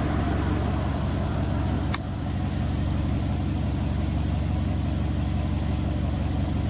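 Subaru Impreza WRX STI (GRB) turbocharged flat-four idling steadily through an aftermarket muffler, with a single sharp click about two seconds in.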